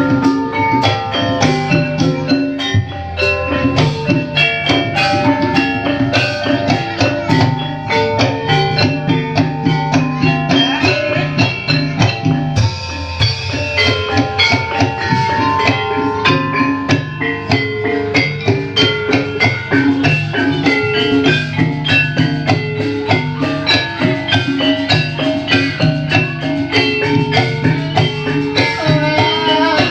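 Gamelan music accompanying an ebeg horse dance: mallet-struck keyed instruments play an interlocking melody over continuous drumming.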